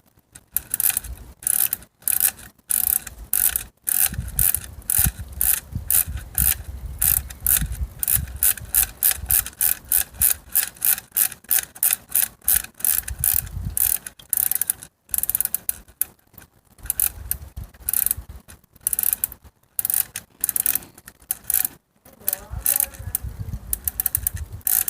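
Rapid ratcheting clicks, two to three a second with uneven spacing, from a toy air rifle's mechanism being worked by hand, with some rubbing and handling noise.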